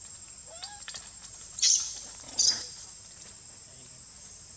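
Two short, high-pitched squeals from macaques, about a second and a half in and again under a second later, over a steady high insect buzz.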